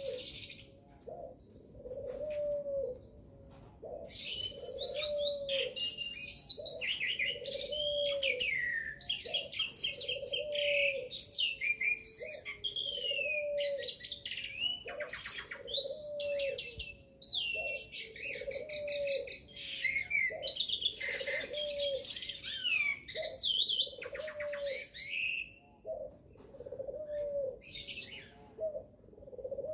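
Birds singing: quick high chirps and trilled phrases, pausing briefly twice, over a low call that repeats steadily about once a second.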